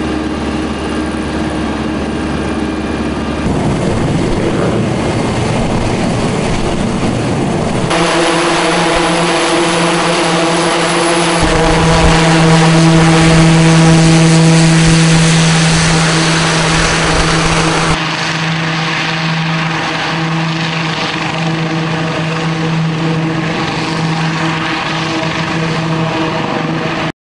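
Eurocopter X3 hybrid helicopter running: its twin turboshaft engines, main rotor and two side propellers make a loud steady whine over a strong buzzing blade tone. The sound changes abruptly a few times and is loudest about halfway through, then cuts off at the very end.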